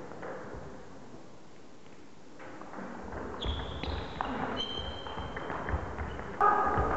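Table tennis rally: the celluloid ball clicks sharply off bats and table, and shoes squeak on the wooden hall floor from about halfway. Near the end a voice breaks in loudly.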